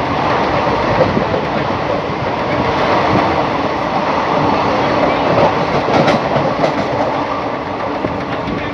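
A vehicle in motion: a steady running and rumbling noise that keeps an even level throughout.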